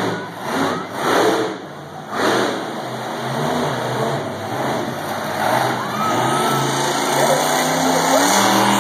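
Hurricane Force monster truck's engine revving hard in three surges over the first couple of seconds, then running on loud and steady as the truck drives across the dirt.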